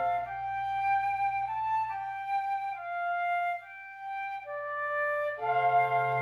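Wind quintet playing a sustained, slow passage: the low bass line drops out just after the start, leaving flute and the other upper winds in held, overlapping notes, and the full ensemble with the bass comes back in about five seconds in.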